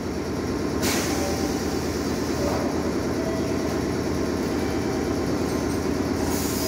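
Meitetsu electric train standing at the platform, its equipment humming steadily, with a short hiss of air about a second in.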